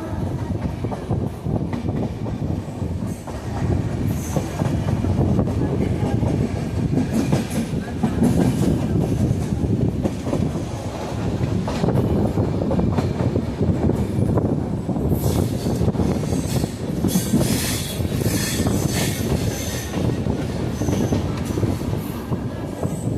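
LHB passenger coaches rolling past on a curve: a continuous heavy rumble of wheels on rail with clickety-clack, and high grinding squeals from the wheel flanges rubbing the rail, strongest in the second half.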